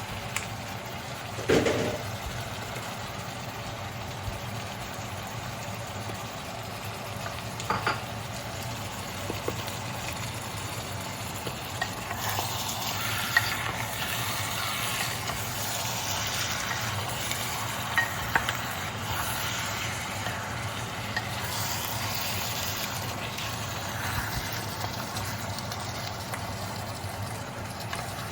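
Chicken thigh pieces sizzling as they sear in hot garlic-ginger oil, with a few knocks of a utensil against the pan; the loudest knock comes about a second and a half in. The crackle grows denser about halfway through, over a steady low hum.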